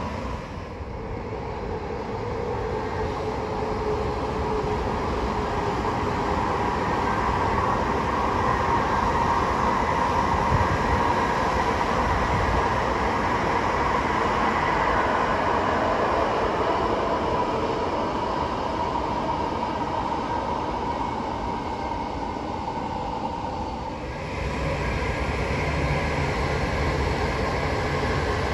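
Chinese high-speed train running at speed: a steady rushing noise with a constant whine in it. The sound changes abruptly a few seconds before the end.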